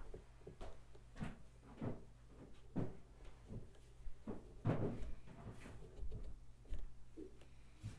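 Scattered light knocks and bumps of objects being handled, irregular and a second or so apart, the strongest about halfway through.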